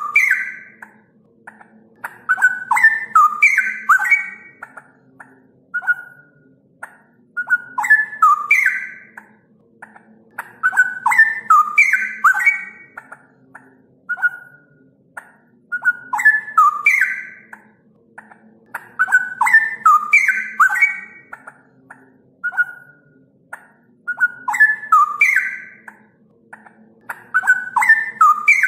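Straw-headed bulbul (cucak rowo) singing loud, liquid warbling phrases that repeat in the same pattern about every four seconds, with a single short note between some of them. A lure recording (pancingan), played to provoke caged cucak rowo into singing.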